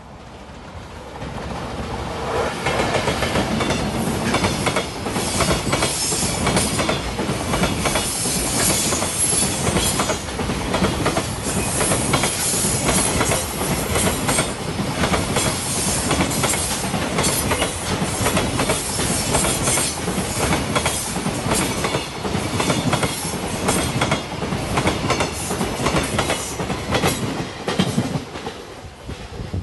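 A JR Freight container train passing close by, its string of loaded container wagons rolling over the rails with a steady rumble and a rapid clatter of wheels over rail joints. The sound builds over the first couple of seconds as the train arrives and eases off near the end as the last wagons go by.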